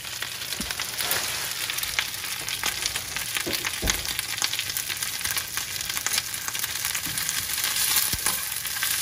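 Fresh spinach sizzling and crackling steadily in a stainless steel frying pan coated with cooking spray, wilting in the heat. A few dull knocks stand out, and near the end the leaves are stirred in the pan.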